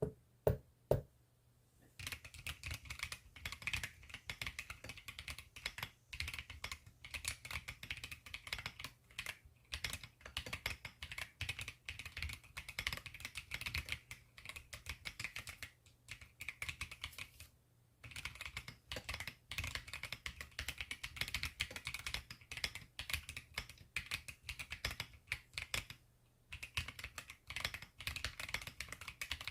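Typing on a mechanical keyboard with Keychron Banana switches: a few single key clicks, then from about two seconds in a fast, continuous clatter of keystrokes with a few short pauses.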